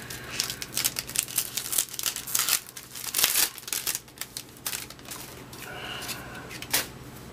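A trading-card pack's wrapper being torn open and crinkled in a quick run of sharp crackles over the first four seconds, the loudest about three seconds in, then a single crackle near the end.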